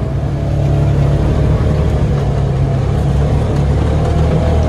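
Engine of a side-by-side utility vehicle running steadily under way on a dirt track, heard from inside its open cab, picking up a little about a second in.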